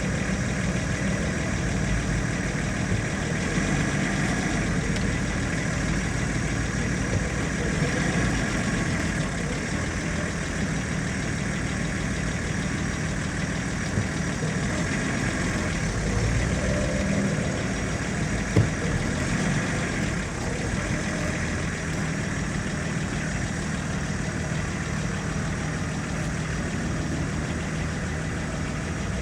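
Vehicle engine idling steadily, with one short knock about two-thirds of the way through.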